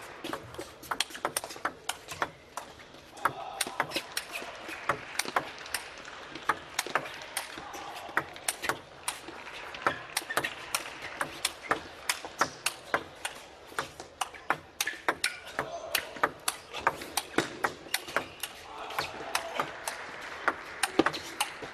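Table tennis ball clicking off the bats and the table in a long, fast counter-hitting rally, a sharp click every half second or so. Crowd voices murmur behind it and swell twice.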